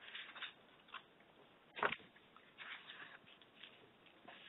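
Faint scattered short noises over quiet room tone, with a sharper, slightly louder one about two seconds in.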